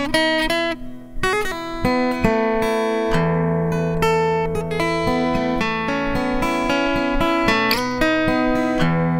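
Background music: a fingerpicked acoustic guitar in DADGAD tuning, plucked notes ringing over a low sustained drone.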